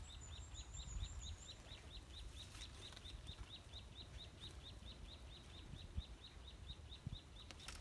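Faint, rapid chirping from a small animal: a short, slightly falling high note repeated evenly about five times a second, over a low background rumble.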